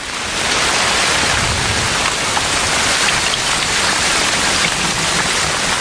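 Heavy tropical rain falling steadily in a downpour, a dense even hiss.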